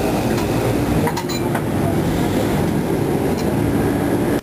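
Steady street traffic noise with a motor vehicle's engine running close by. A few light clinks of utensils against a bowl come about a second in.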